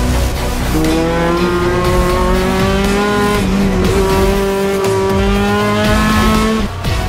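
Touring race car engine heard from inside the cockpit, running at high revs with its pitch rising slowly, then a sudden dip near the end.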